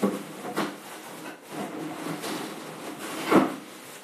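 Refrigerator freezer drawers being pulled out and pushed back while someone rummages for a bag of frozen grated carrot. Sharp knocks come at the start and just after, with rustling and scraping between, and the loudest knock about three seconds in.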